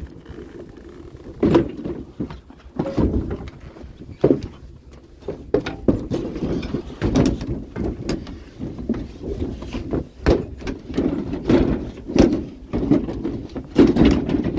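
Irregular bumps, knocks and scraping of a wooden greenhouse being handled and pushed into a vehicle.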